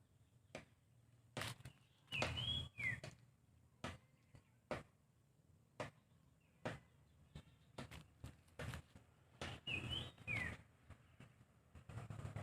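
A bird calling twice, each a short two-part call with a quick high rising note and then a falling note, among scattered clicks and rustling handling noise.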